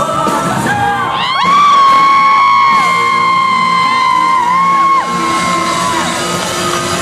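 Live norteño band music with accordion and drums. A voice holds one long high note for about four seconds, sliding up into it a little over a second in and falling away near the five-second mark, louder than the band.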